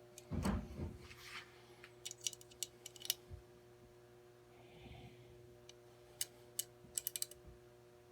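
Screws on an AK quad rail being tightened with a hand tool: a handling knock, then two quick runs of sharp small metal clicks.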